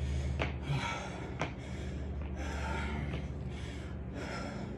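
A man panting heavily after burpees, rapid loud breaths in and out in a steady rhythm. Two short clicks in the first second and a half.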